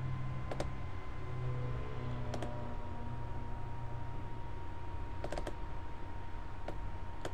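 Scattered sharp clicks of a computer mouse, about eight, with a quick run of three a little past the middle, as a program window is restored and dragged. Under them runs a faint steady high whine and a low hum.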